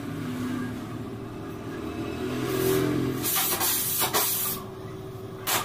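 Gas welding torch hissing: one loud spell of about two seconds, starting some two and a half seconds in and dipping briefly a couple of times, then a short burst near the end, over a steady low hum.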